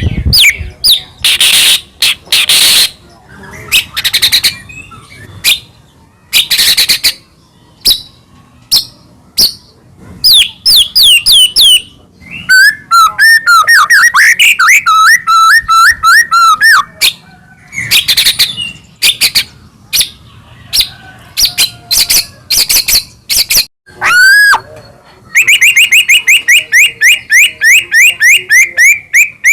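White-rumped shama (murai batu) singing loudly in a varied run of sharp whistles, slurred notes and warbling trills, ending in a fast repeated series of about five notes a second.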